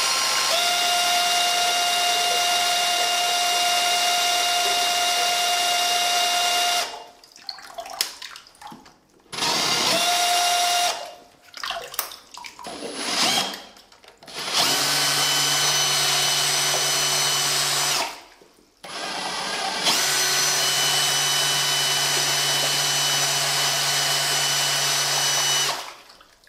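A power drill spinning a 3D-printed flexible-impeller (TPU) water pump, with a steady even-pitched whine. It starts and stops about six times, the longest runs lasting about six seconds, while the pump moves water, showing that it works.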